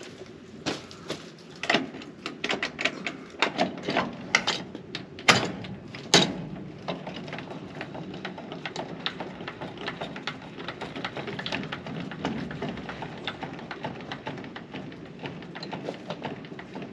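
Metal clanks and clicks from a trailer hitch and crank-up tongue jack being worked by hand, with the sharpest knocks in the first six seconds and a run of lighter ticks after, over a steady low hum.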